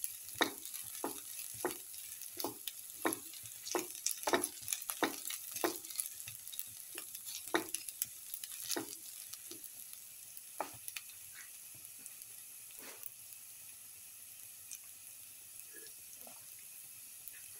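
Sliced shallots frying in oil in a metal pan, a spatula scraping and stirring them about twice a second over a light steady sizzle. The stirring strokes thin out to a few after about nine seconds, leaving mostly the sizzle.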